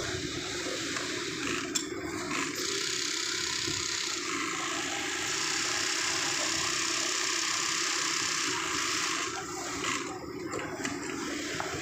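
Industrial sewing machine running, stitching seat-cover material, over steady workshop machine noise. There is one sharp click about two seconds in, and the running sound is a little louder and steadier through the middle.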